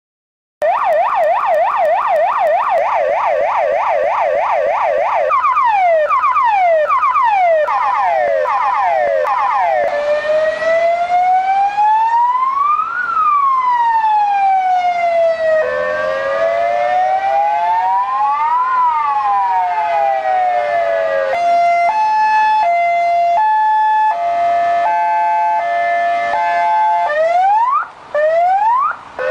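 Electronic police siren of an Argentine police car cycling through its modes. It starts about half a second in with a fast yelp of about four sweeps a second. Around five seconds in it changes to separate sweeping whoops, around ten seconds to a slow wail that rises and falls twice, around twenty-one seconds to a tone stepping back and forth between pitches, and near the end to sweeping whoops with short gaps.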